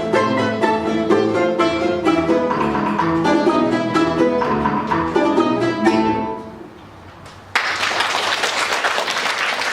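Russian folk-instrument ensemble playing the last bars of a polka-galop, with fast repeated plucked notes, ending on a final chord that dies away about six seconds in. After a second's pause, applause starts suddenly and keeps going.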